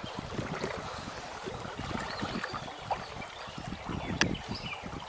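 Small river running over a shallow riffle, with wind buffeting the microphone and one sharp click about four seconds in.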